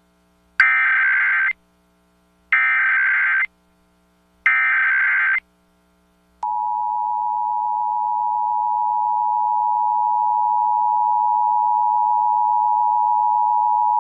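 Emergency Alert System tones: three roughly one-second bursts of SAME header data, a second apart, then the steady two-tone attention signal (853 and 960 Hz together) starting about six seconds in, marking the start of the alert relay.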